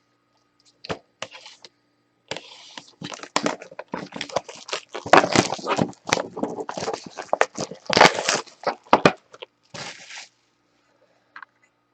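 Crinkling and tearing of the plastic shrink wrap on a sealed trading-card box as it is unwrapped: a dense run of crackles and rustles lasting about eight seconds, with a few last crinkles near the end.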